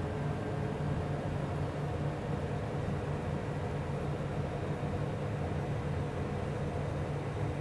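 Steady cockpit noise of a jet on short final approach: an even low engine hum under a rush of airflow, with no change in pitch.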